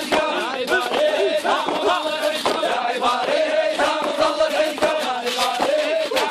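A crowd of men chanting an Iraqi hosa refrain together, loud and rhythmic, in held sung pitches. Sharp hits sound through the chanting.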